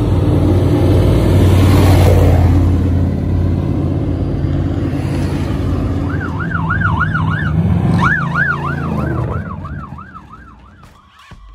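Off-road race trucks' engines running loud as they pass and pull away. Then a siren yelps rapidly, about three to four rising-and-falling cycles a second, for about four seconds, and the sound fades toward the end.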